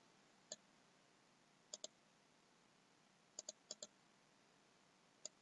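Faint computer mouse clicks over near silence: a single click, then three quick double clicks, and one more click near the end.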